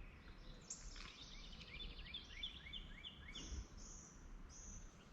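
A small bird calling a quick series of short chirps, about four a second for a couple of seconds, over faint outdoor background hiss.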